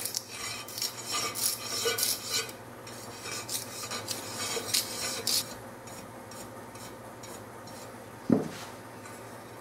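Razor blade scraping dried paint resist off sandblasted glass in quick, short rasping strokes. A bristle brush then sweeps the loosened flakes off the glass more softly, and a single knock comes a little over eight seconds in.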